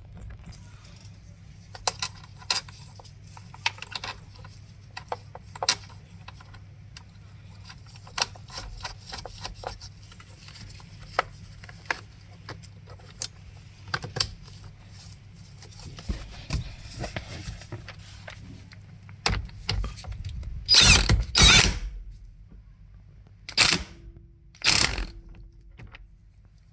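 A socket ratchet clicks and steering wheel parts knock and click as the steering wheel is refitted over a new clock spring. The sounds are short and scattered, with louder rattling runs about three quarters of the way in, over a low steady hum.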